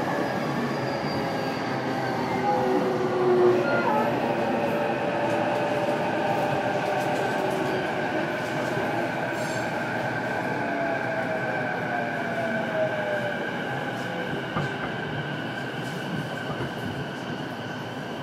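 Running noise inside a JR East E233-series electric train's motor car between stations: wheel-on-rail rumble with steady whining tones from the traction equipment, and a lower tone that slides down in pitch about ten seconds in.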